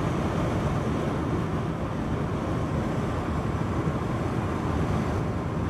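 Steady road and wind noise inside the cabin of a moving car, a constant low rumble with an even hiss over it.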